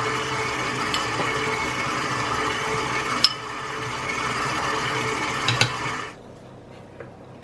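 Electric mixer running steadily, beating cake batter, with a couple of sharp clicks against the bowl; the motor cuts off about six seconds in.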